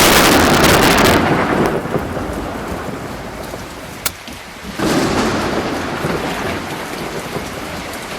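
Rain drumming on a roof through a thunderstorm: a loud clap of thunder rolls and fades over the first two seconds, and a second roll of thunder breaks about five seconds in and dies away slowly. A single sharp tick comes about four seconds in.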